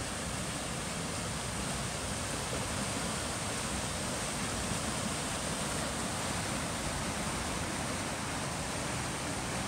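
Swollen, muddy floodwater rushing down a rain-filled drainage creek and tumbling over riprap rocks: a steady, even rush of water.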